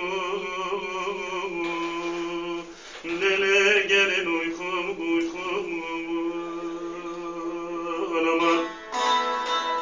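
Bağlama (long-necked Turkish saz) playing a folk melody over its steady drone strings, with a brief drop in level about three seconds in.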